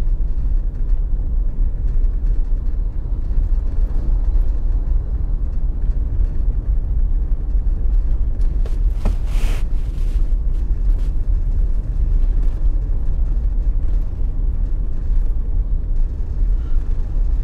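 Steady low rumble of a car driving on a road: engine and road noise, with a brief louder hiss about nine seconds in.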